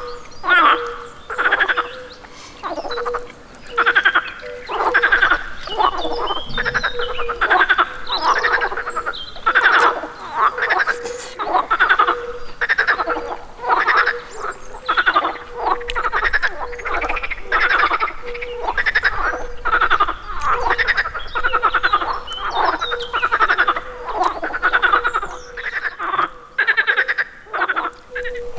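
A chorus of frogs croaking: rattling, pulsed calls about one a second, over a steady low tone.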